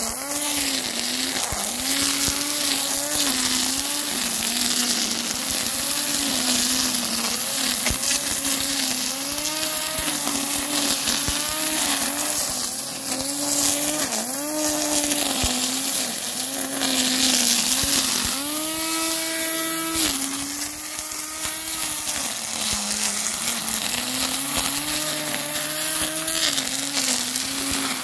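Parkside PRT 550 A3 550-watt electric grass trimmer running, its nylon line swishing through weeds and grass. The motor's whine sags in pitch each time the line bites into the grass and climbs back as it frees, running highest and steady for a moment about two-thirds of the way through.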